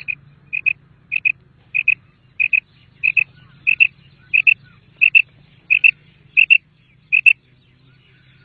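Common quail calling: a rapid, even series of sharp double notes, about one and a half a second, stopping shortly before the end.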